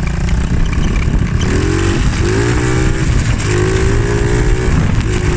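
Small semi-automatic monkey bike engine pulling away on a test ride with a newly fitted clutch, its revs climbing, holding and dropping back about four times.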